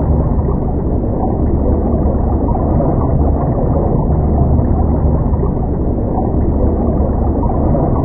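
Steady low rumbling drone, dark and noise-like, with its weight in the deep bass and no distinct events.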